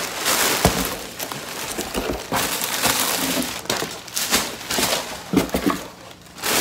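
Plastic-wrapped packages crinkling and cardboard box flaps rustling as items are handled and packed into a cardboard box, with a few sharper knocks.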